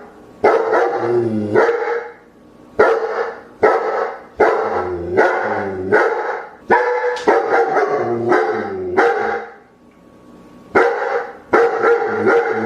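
A dog barking repeatedly, about a dozen loud barks in quick groups, several ending in a falling pitch, with a pause of about a second shortly before the end.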